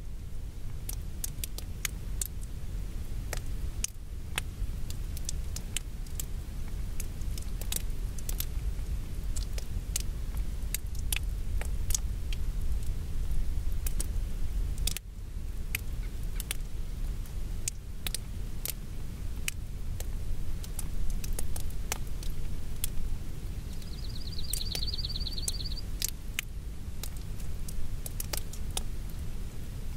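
Mountain wind with a low, steady rumble and scattered raindrops ticking sharply. A short, rapid, high-pitched trill comes about three-quarters of the way through.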